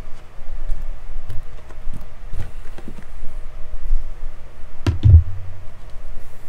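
Small cardboard boxes of trading cards being set down and handled on a table: several soft knocks and taps, with the loudest thump about five seconds in.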